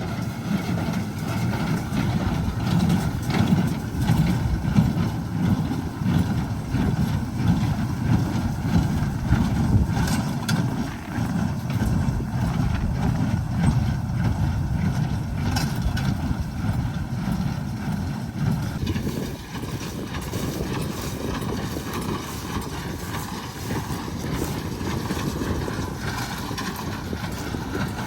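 A farm tractor's engine running steadily, with machinery rattle, easing off a little about two-thirds of the way through.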